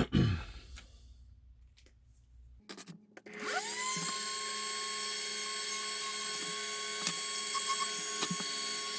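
Small electric drill, after a few handling clicks, spins up about three seconds in and runs at a steady, high-pitched speed, drilling a hole in a plastic model hull for a navigation-light flasher.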